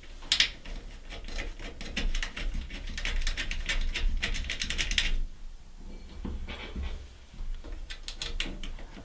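Screws being driven back in to mount a washing machine's new fill valve: a dense run of rapid clicking for several seconds, then a quieter pause and a few scattered clicks near the end.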